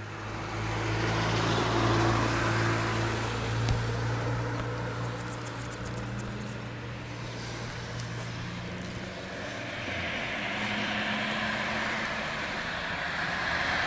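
A motor vehicle engine humming steadily with road traffic noise. It swells about two seconds in, eases off, and its pitch shifts about ten seconds in.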